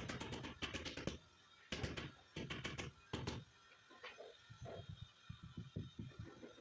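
White rubber mallet tapping a marble stair tread to bed it into the mortar beneath: quick runs of knocks in the first three and a half seconds, then softer, duller taps at about four or five a second.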